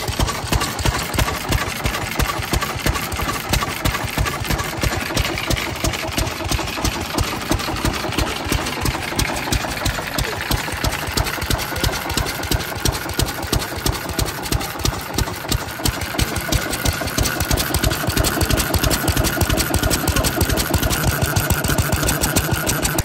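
Kubota E6 single-cylinder kerosene stationary engine running with a steady, rhythmic firing beat, growing louder in the last few seconds.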